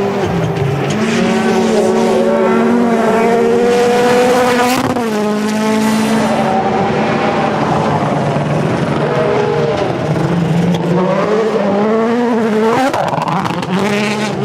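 Rally car engine at full attack, held at high revs with dips and climbs in pitch as it shifts and lifts. There is a sharp crack about five seconds in, and a steep rev climb near the end.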